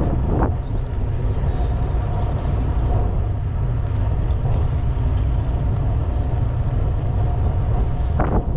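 Wind buffeting the microphone on a moving bicycle: a steady low rumble.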